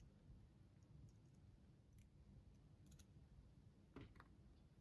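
Near silence with a few faint, short plastic clicks, about two, three and four seconds in, as a syringe and an empty marker body are handled while ink is filled into the marker.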